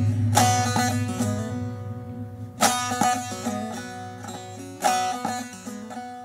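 Closing instrumental phrase of a song: a plucked string instrument strikes three strummed flourishes about two seconds apart, each followed by a quick run of notes, over a steady low drone. The notes ring out and die away toward the end.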